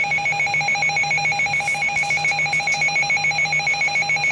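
Weather alert radio sounding its built-in alarm, a loud, rapidly pulsing electronic beep that signals a severe thunderstorm warning is being broadcast.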